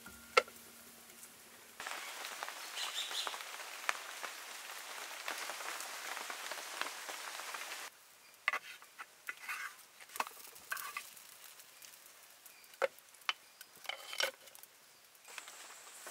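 A clay lid clacks down onto a clay roti pan. Then comes about six seconds of steady sizzling hiss from roti cooking on the pan over a wood fire, which cuts off abruptly. After that the wood fire crackles with scattered sharp pops and snaps.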